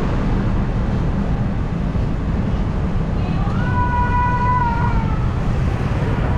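Steady low rumble of wind on the microphone and road noise from the moving vehicle carrying the camera. A single pitched tone about a second and a half long sounds over it from about three seconds in, rising at its start and falling away at its end.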